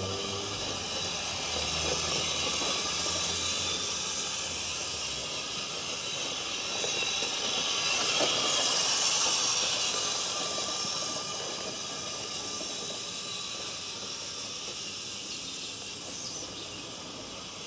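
A 1/6-scale radio-controlled Kübelwagen model driving over grass, its motor and gears whirring with a hissy sound that swells as it passes close, loudest about halfway through, then fades as it drives away.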